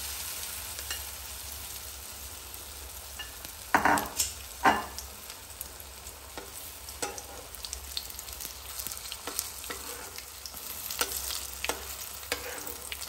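Batter-coated potato slices sizzling in hot oil, with a steady hiss and scattered crackles. A steel spatula scrapes against the pan a couple of times, loudest about four seconds in, as the fritters are moved and turned.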